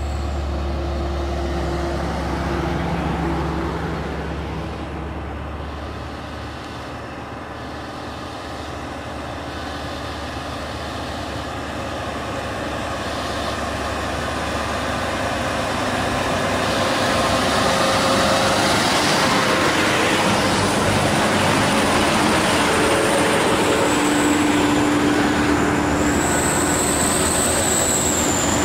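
Heavily loaded diesel trucks running up a grade and passing close by, engines steady under load with tyre noise on the road. The traffic gets quieter a few seconds in, then louder from about halfway as trucks come near.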